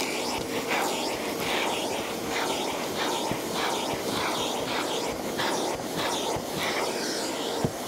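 Shop vac running, its wide plastic nozzle drawn over a carpeted car floor mat in quick repeated strokes, the rush of air changing with each stroke as it sucks up debris.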